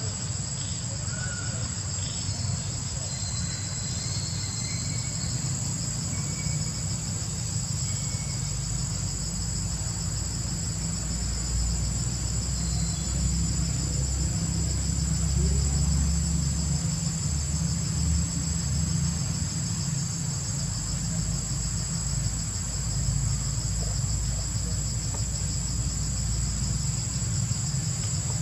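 Steady, shrill insect chorus droning without a break, with a low rumble underneath that swells for a few seconds around the middle.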